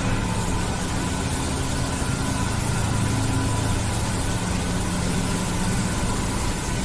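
1100-bar hydro jetting machine running steadily, its 150 HP motor and high-pressure pump giving a constant low hum under an even hiss.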